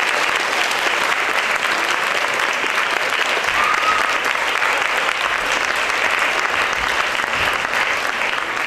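Audience applauding: steady, dense clapping, with a brief high cry from the crowd about four seconds in.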